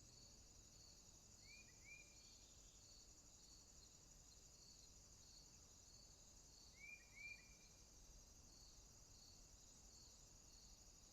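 Faint outdoor afternoon ambience. A steady high insect chorus runs throughout, with a soft chirp repeating about twice a second. A bird gives a quick two-note call twice, about a second and a half in and again about seven seconds in.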